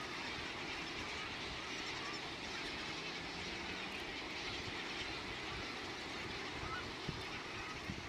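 Steady din of a huge feeding flock of seabirds on the water: many gulls calling at once over splashing. Single calls poke out faintly here and there.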